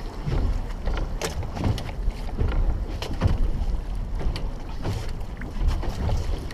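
Wind rumbling on the microphone aboard a small boat on choppy sea, with irregular short knocks throughout.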